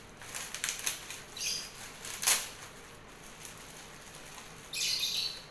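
Handling of a folding umbrella fish trap: rustling and flapping of its netting and wrapping, with a sharp click about two seconds in and another burst of rustling near the end.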